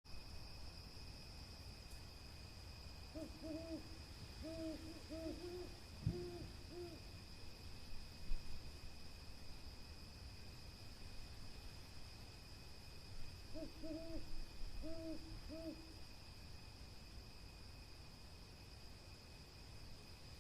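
Owl hooting in two bouts of short, rapid hoots, the first about three seconds in and the second about thirteen seconds in. A steady high insect trill runs underneath.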